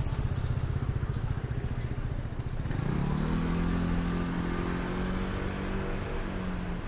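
A motor vehicle's engine running close by over low traffic rumble, its engine note rising about three seconds in and holding steady until near the end.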